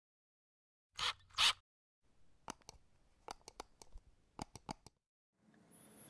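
Intro sound effect: two short hissing bursts about half a second apart, then about a dozen light, uneven clicks over the next few seconds.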